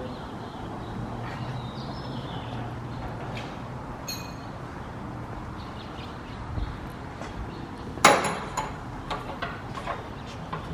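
Metal tools and car parts being handled: a short metallic ring about four seconds in, then a loud metal clank about eight seconds in, followed by a run of lighter clinks and knocks. A low hum sits underneath for the first few seconds.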